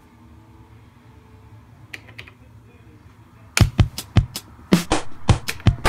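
Oberheim DMX drum machine playing a beat, loud kick, snare and hi-hat hits in quick succession, starting about three and a half seconds in after a couple of faint clicks.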